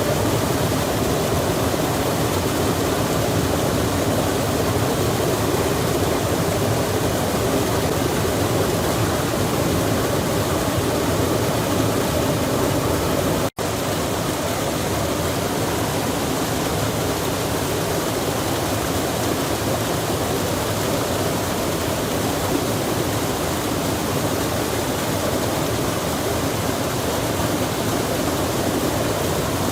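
A stream flowing in the rain: a steady, even rush of water. The sound drops out for an instant about halfway through.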